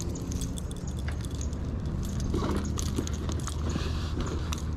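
Small metallic clicks and jingles of a lure and hook being worked out of a largemouth bass's mouth by hand, with handling rustle, over a steady low rumble.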